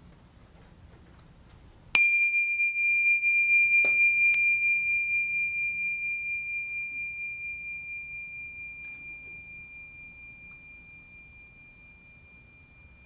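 Tingsha, a pair of small cymbals joined by a cord, struck together once about two seconds in. They ring one high, clear tone that fades slowly over about ten seconds, with a slight waver. A couple of faint knocks follow about two seconds after the strike.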